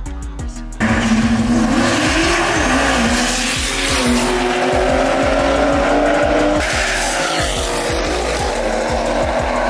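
A high-performance car doing a drag-strip burnout: the engine is held at high revs while the rear tyres spin and squeal. It starts abruptly about a second in, its pitch wavering at first and then holding steady, with a hip-hop beat playing underneath.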